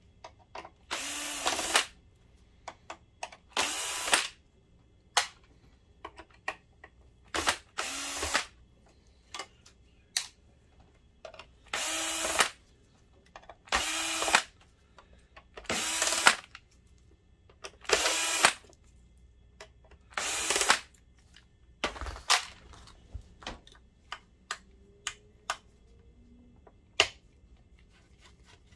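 DeWalt cordless drill-driver backing out screws from a projector's metal shield. It runs in about eight short bursts of under a second, roughly every two seconds, with small clicks between them. The drill stops about three-quarters of the way through, and a single thump follows.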